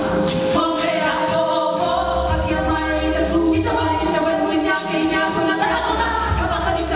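Live stage music: a group of voices singing long held notes over drums and a low bass, the chord changing every two or three seconds.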